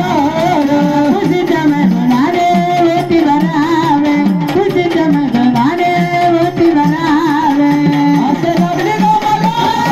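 Marathi Gondhal folk music: a wavering, ornamented melody over tabla-style hand-drum rhythm.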